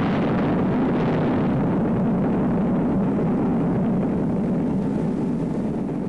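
Explosion sound effect: the long, steady rumble of a big blast, starting to fade slowly near the end.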